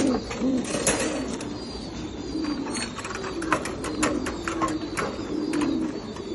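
French meat pigeons cooing throughout, with many short sharp clicks and taps scattered over it.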